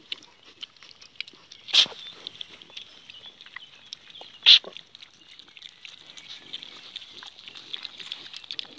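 Wild boar piglets calling: two short, loud, high-pitched squeaks about two and four and a half seconds in, among many faint small clicks over a steady high hiss.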